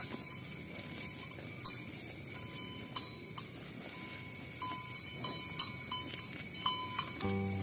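Cowbells on a herd of cattle clinking and ringing irregularly as the animals move. Music comes in suddenly near the end.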